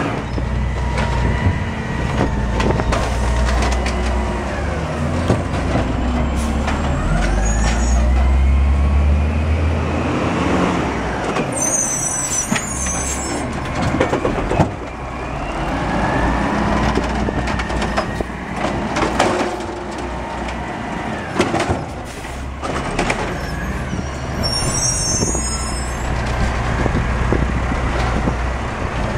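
Diesel garbage truck with an Amrep automated side-loader arm at work: the engine revs up and down again and again to drive the hydraulics as the arm grabs, lifts and dumps carts, with clanks from the arm and cart. Short high squeals come about twelve seconds in and again near the end, along with air-brake sounds.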